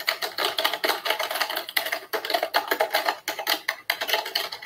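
Fast typing on a low-profile computer keyboard: a rapid, uneven stream of key clicks.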